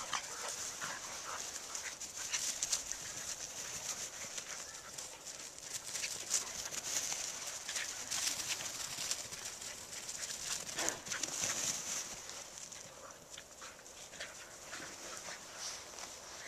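Dogs playing chase on grass, with a run of short, irregular scuffling sounds from the running dogs.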